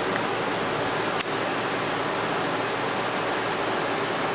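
Steady loud rushing hiss with one sharp click about a second in.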